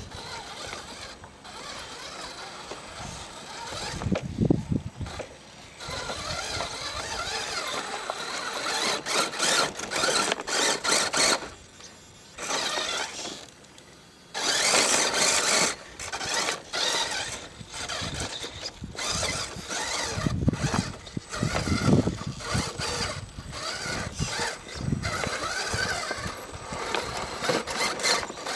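Radio-controlled scale rock crawlers' electric motors and geared drivetrains whining as they climb over rocks, the whine swelling and dropping as the throttle is worked and stopping briefly a few times.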